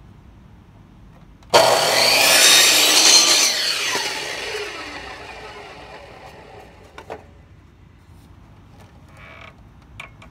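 Power saw starting abruptly and cutting through a cedar shake for about two seconds, then the blade spinning down with a falling whine that fades over several seconds. A sharp click follows a few seconds later, and another near the end.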